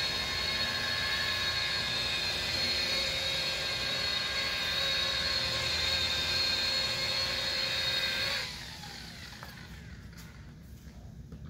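Handheld electric rotary polisher running steadily as its pad buffs a truck's painted panel: a steady whine made of several tones. About eight and a half seconds in it is switched off and winds down, its pitch falling.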